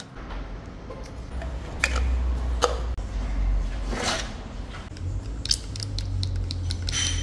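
Pump oil can and plastic oil-filter housing being handled, with a few sharp clicks and squishes as oil is squirted onto the housing's new O-rings to lubricate them. Under it runs a steady low hum that shifts about five seconds in.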